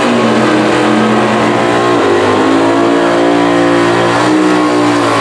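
Drag-racing muscle car's engine held at high revs during a burnout, its rear tyres spinning. The revs dip briefly about two seconds in and again near the end.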